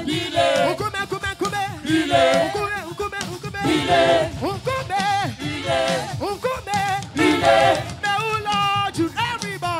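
Church choir singing a gospel worship song over live band accompaniment, amplified through a PA.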